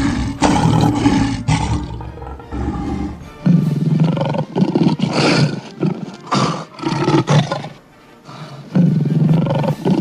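Lion roars, several in a row with short gaps between them, over background music.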